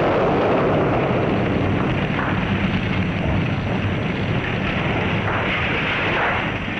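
Battle noise: a continuous, dense rumble of explosions and fire, without clearly separate blasts.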